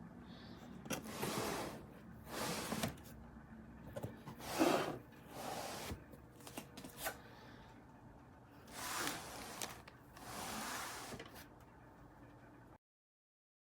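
Several short rustling swishes, about six in all, with a few light clicks in between over a faint steady hum; the sound stops abruptly near the end.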